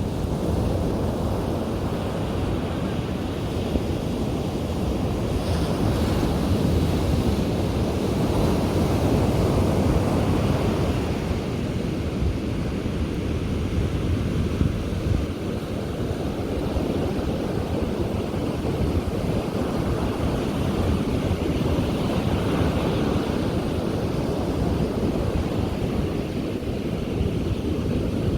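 Ocean waves breaking and washing onto a beach, a continuous surf noise that swells and eases every several seconds, with wind buffeting the microphone.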